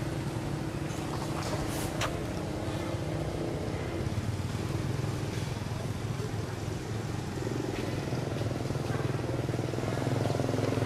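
A motor vehicle engine, likely a motorcycle, running steadily; its pitch shifts partway through. There is also a sharp click about two seconds in.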